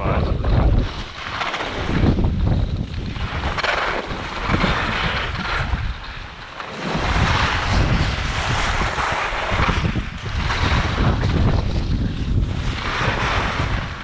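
Strong gusty wind buffeting the camera microphone, a heavy rumbling rush that rises and falls in gusts and eases briefly about halfway through.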